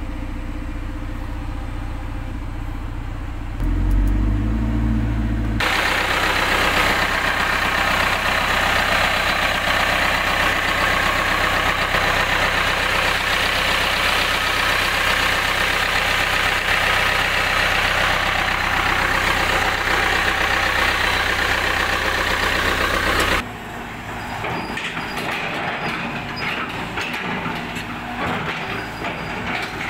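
CAT 320 GC excavator's diesel engine running on a test run after repair. It idles steadily, then rises in speed and loudness about three and a half seconds in as the engine speed dial is turned up. Heard close to the radiator and cooling fan, it becomes a loud, even rush, then drops quieter with scattered clicks about 23 seconds in.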